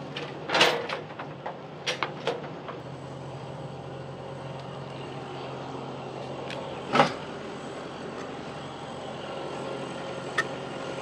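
An engine idling steadily under several sharp wooden knocks as a heavy white oak log is shifted and flipped on the sawmill bed. The loudest knock comes about half a second in, with two smaller ones around two seconds and another strong one about seven seconds in.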